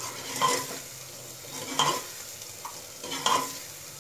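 A steel spoon stirring and scraping through dry spices frying in oil with green chutney in an aluminium pressure cooker, over a steady sizzle. Three scrapes stand out, about a second and a half apart.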